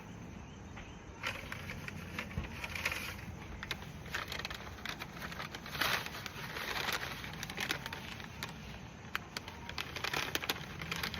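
Leafy cannabis branches rustling and crackling as they are handled and cut, with many short irregular clicks and a few louder rustles.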